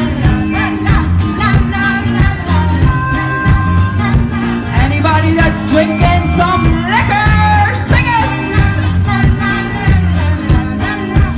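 Live band playing a song with electric and acoustic guitars, bass and drums, with singing over a steady beat.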